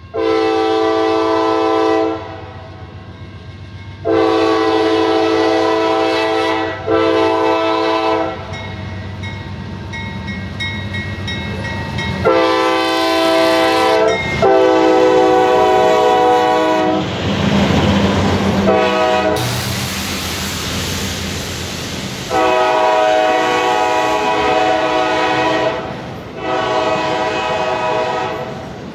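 Freight locomotive's air horn sounding a chord in blasts: two long, a short, then a long (the grade-crossing signal), followed by more long blasts. Partway through, the train's rumbling rush swells as the locomotive passes close.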